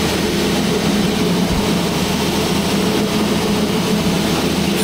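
A steady machine drone: an even whooshing hiss over a low hum that does not change.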